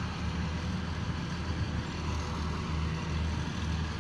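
Diesel engine of a heavy road-construction machine running steadily with a low hum, heard over a haze of outdoor street noise.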